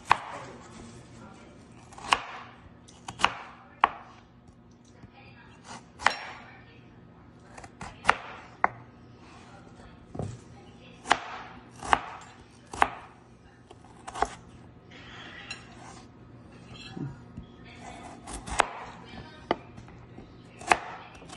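Kitchen knife cutting through peeled raw potato and knocking down onto a plastic cutting board: about fifteen sharp chops, irregularly spaced roughly a second apart, with a short pause about two-thirds of the way through.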